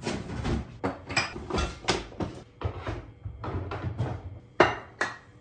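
Irregular knocks and clatter of household things being handled and set down on a kitchen counter, the sharpest two knocks about four and a half and five seconds in.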